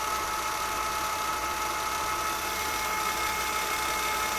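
Milling machine taking a slow cut in hard K460 tool steel with a high-speed-steel cutter at about 200 RPM, running steadily with a high whine, over the even hiss of an air blast cooling the cut.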